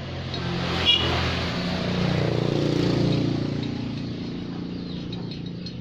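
Motor vehicle engine running, growing louder to a peak about three seconds in and then fading away, with a single sharp click about a second in.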